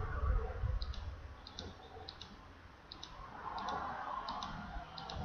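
Computer mouse button clicked about seven times at an even pace, roughly one click every 0.7 s, each a quick double tick of press and release, typing letters one at a time on an on-screen keyboard.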